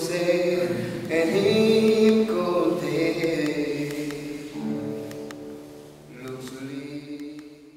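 Music with singing voices, growing quieter and fading out near the end.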